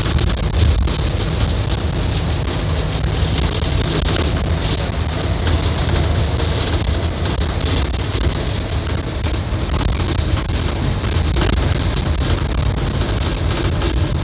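Cabin noise inside a Scania K310iB city bus under way: a steady low rumble from its rear-mounted 9.3-litre DC09 diesel engine mixed with road noise.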